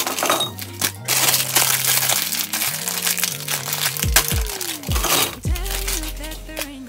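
Background music with a beat and deep bass notes, one of which slides down in pitch about two-thirds of the way through. Under it, a plastic packet crinkles as wrapped stock cubes are tipped rattling into a glass jar.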